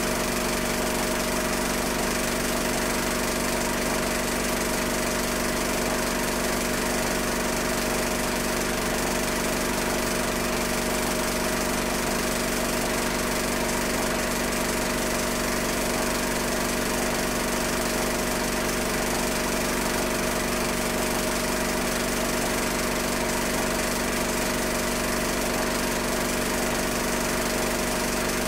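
Steady, unchanging motor whir with a constant hum, the running noise of a film projector playing silent home-movie film.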